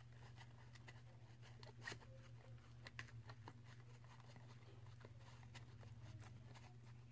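Faint, scattered clicks of slime being stirred with a wooden craft stick in a plastic bowl, the slime freshly mixed with activator, over a steady low hum.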